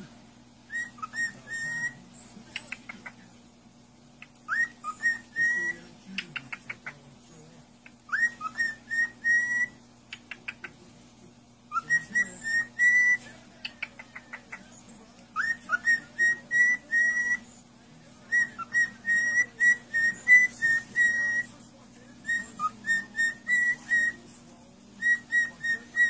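Cockatiel whistling a tune in short repeated phrases of clear whistled notes, with quick runs of ticking chirps between some of the phrases.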